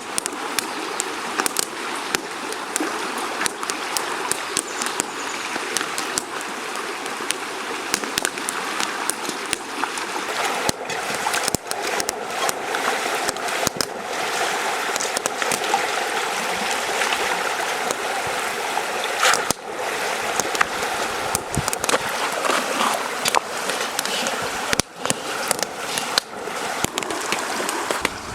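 Flowing river water rushing steadily, with many small sharp ticks scattered through it.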